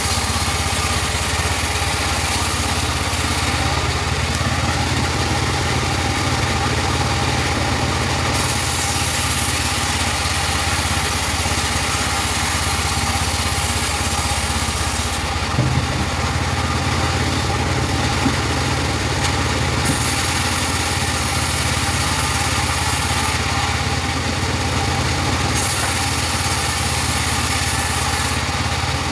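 Engine-driven portable bandsaw sawmill running steadily with a constant low engine hum, the hiss above it getting louder and softer in steps every few seconds.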